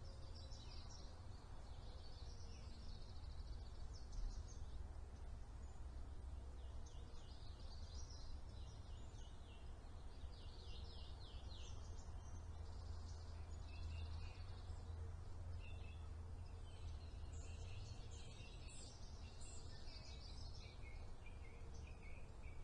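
Small birds chirping and twittering in quick series, over a low steady rumble.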